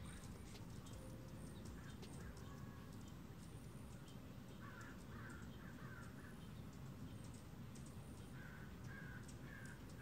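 Quiet outdoor ambience with a steady low rumble, and a bird calling in two series of about four short notes, the first about halfway through and the second near the end, with faint high ticks scattered throughout.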